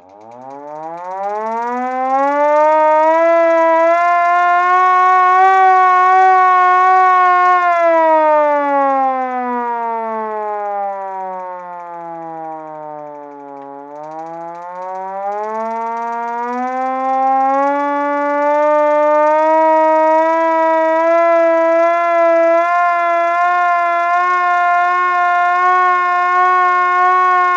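Vintage hand-cranked fire siren winding up from a low pitch to a steady wail and holding it. About halfway through it winds down, its pitch falling, then is wound back up to the same wail and held, starting to fall again right at the end.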